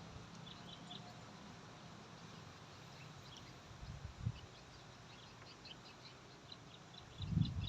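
Faint background of small birds chirping in short quick notes, sparse at first and more frequent toward the end. A low thump comes about four seconds in, and a loud low rumble starts just before the end.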